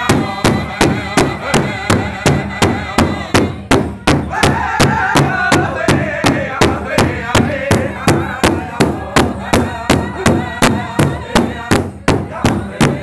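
A large hide-headed powwow drum struck in unison by several drummers in a steady beat, about three beats a second, with the group singing over it in high voices. The singing rises higher and louder from about four seconds in.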